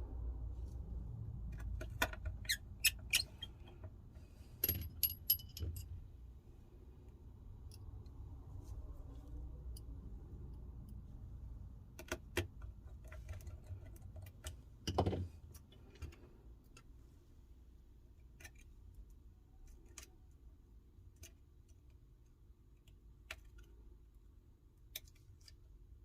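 Small tools and iPhone 12 parts being handled during reassembly: scattered sharp clicks and light metallic clinks in small groups, the loudest a click with a dull knock about fifteen seconds in, over faint handling rumble.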